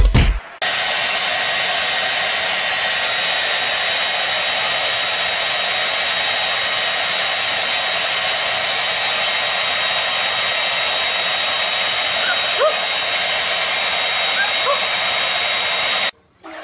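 Handheld hair dryer running steadily, a constant rush of air with a faint high whine. It comes in about half a second in and cuts off suddenly near the end.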